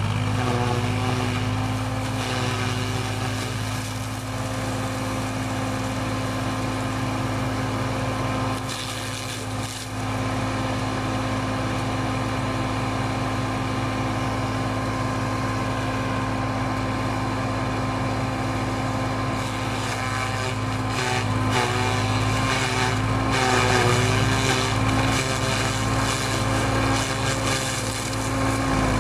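Tractor engine driving a small PTO-powered feed chopper at a steady pitch while dry corn stalks are shredded through it. From about twenty seconds in, fresh stalks going in add crackling, and the engine note wavers.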